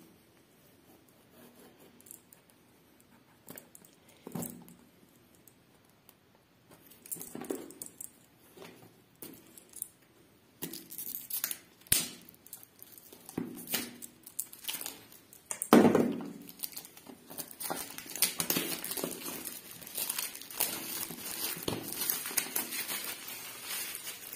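Plastic shrink-wrap seal being cut with a knife and peeled off a smartphone's cardboard retail box. The crinkling and crackling start sparse with a few light knocks, then grow dense and loud through the second half.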